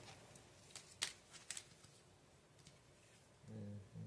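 Near silence: room tone with a few faint clicks, then a brief hummed murmur from a voice near the end.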